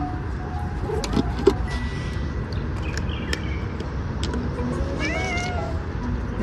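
A cat meows once, a short call about five seconds in, over a steady low rumble. A few sharp clicks and taps come about a second in, the loudest about a second and a half in.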